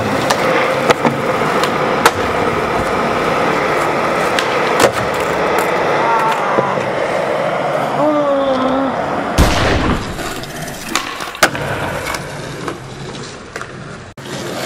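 Skateboard wheels rolling over smooth concrete, with sharp snaps of the board popping and landing several times. A short wavering voice cry comes in the middle, then a heavy thump about nine and a half seconds in, after which the rolling fades.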